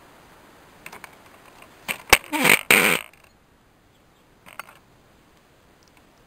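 A sharp metal clank about two seconds in, then about a second of loud rasping scrape, as steel lifting tongs take hold of a crucible of molten aluminum.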